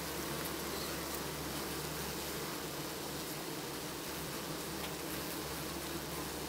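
A swarm of honey bees gives off a steady buzzing hum.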